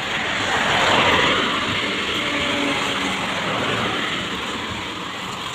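Steady rushing noise of riding a bicycle at speed, air and tyres on the asphalt. It swells about a second in and then eases off gradually.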